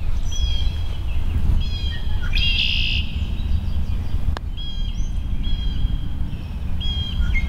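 A bird calling repeatedly, short high calls every second or two with a brighter, buzzier burst about three seconds in, over a steady low rumble. A single sharp click comes about four seconds in.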